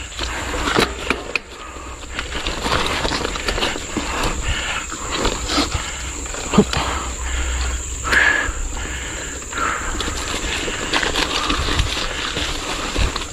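Mountain biker climbing a rocky trail: the rider's heavy breathing close to the microphone, with the tyres crunching over loose stones and the bike rattling in short knocks.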